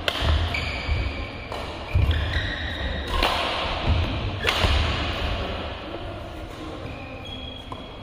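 Badminton rally: racket strings hit the shuttlecock four times, about a second and a half apart, with short squeaks of court shoes on the floor and footfalls thudding between the strokes. The hitting stops about halfway through as the rally ends.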